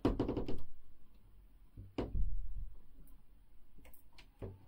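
Scattered clicks and knocks: a quick run of clicks at the start, a louder knock about two seconds in, and another knock near the end.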